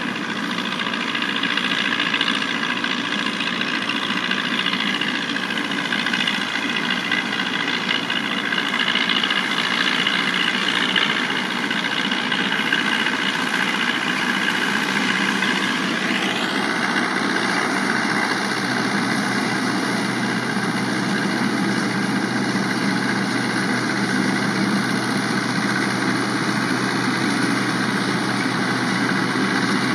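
Tractor diesel engine running steadily under load, driving a straw chopper as it cuts stubble and blows the chopped straw through its chute, a continuous machine drone.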